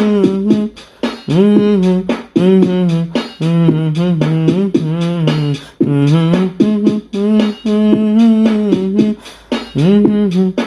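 Background music: a pitched melody stepping between notes over a steady percussive beat.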